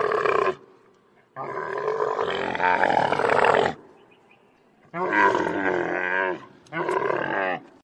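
Loud, drawn-out animal calls: four in a row, the longest about two seconds, each starting and stopping abruptly with short gaps between.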